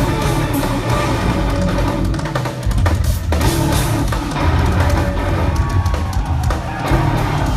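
Live instrumental progressive metal played at full volume: eight-string electric guitars over a busy drum kit with heavy bass drum.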